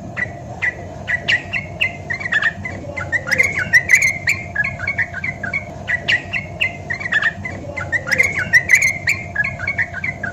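Yellow-vented bulbul singing: quick, chattering runs of short warbled notes in two long phrases, with a brief break in the middle.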